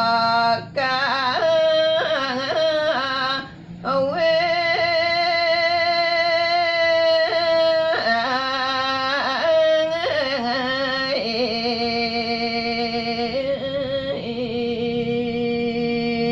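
A solo voice sings Balinese geguritan in the Sinom tembang metre, unaccompanied. It holds long, slightly wavering notes and bends through melismatic ornaments between them, with a brief breath pause a little before four seconds in.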